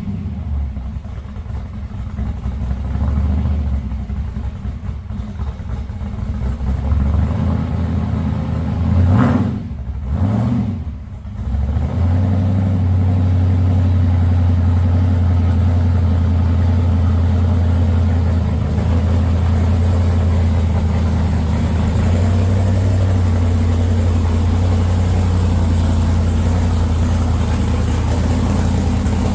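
Hot rod's carbureted engine running just after starting, blipped twice about nine and ten seconds in, then settling into a steady idle.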